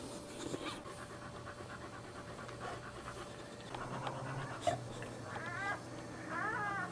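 Boxer mother dog panting steadily just after giving birth to her litter. Near the end come two brief bursts of high, wavering squeaks from the newborn puppies.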